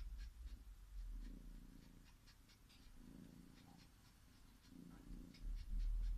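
Young cat purring in slow swells, about one every two seconds, with faint quick clicks of sucking as it kneads and suckles a cloth like a nursing kitten. A low rumble rises near the end.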